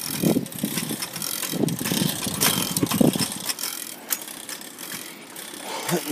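Bicycle being ridden on pavement: its chain and gears click and rattle over tyre and road noise, with low thumps about every second and a half early on. The chain is slipping on the gears.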